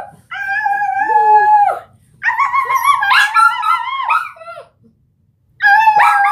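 A person and a small dog howling together: a long, steady, high howl first, then from about two seconds in several wavering howls that overlap for a couple of seconds, and one more howl near the end.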